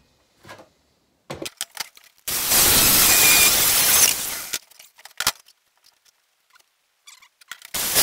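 A power cutting tool cutting steel flat bar in two runs of about two seconds each, the first starting about two seconds in and the second near the end, with light metal clicks between them.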